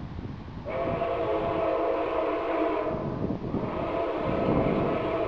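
Steam whistle of Nickel Plate Road 765, a 1944 2-8-4 Berkshire steam locomotive, blowing a chord of several notes: one long blast starting about a second in, a brief break around three seconds, then a second long blast.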